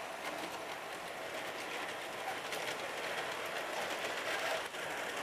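O scale model diesel locomotive and passenger cars running along the track: a steady rolling hum of the running train with faint clicks.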